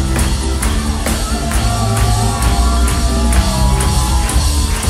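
Live rock band playing, with sustained bass notes under a steady beat of about two strokes a second.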